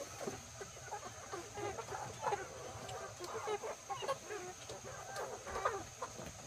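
A flock of chickens clucking, with many short calls overlapping one another.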